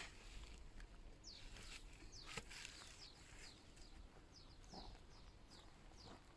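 Faint outdoor quiet with small birds calling: short, high chirps that fall quickly in pitch, repeated every half second or so, and a single light click about two and a half seconds in.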